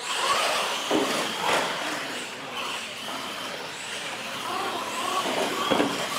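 Radio-controlled monster trucks racing across a concrete floor: their motors run and tyres rush. Sharp knocks come about a second in and again near the end, the last as a truck lands off a wooden ramp.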